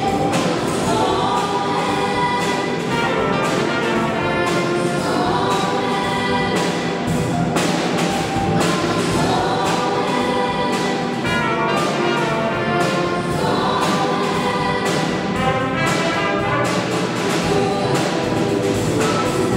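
Youth choir singing together through microphones, backed by a live band with keyboards, guitar and a trumpet, with a steady beat.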